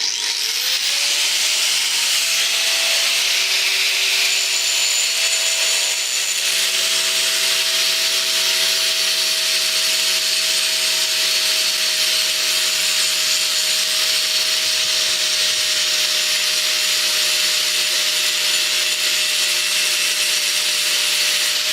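Angle grinder spinning up at the start, then running steadily against exhaust metal: a steady whine over a harsh hiss.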